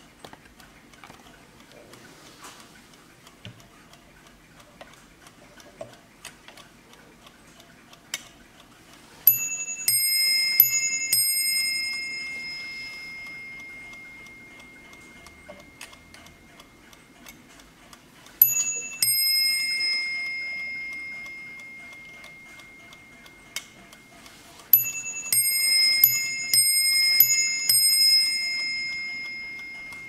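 Warmink Dutch mantel clock ticking, then striking on its two bells with a high and a lower note. It strikes in three runs: a few strikes about nine seconds in, two more a little before halfway, and a longer run near the end, each ringing out slowly.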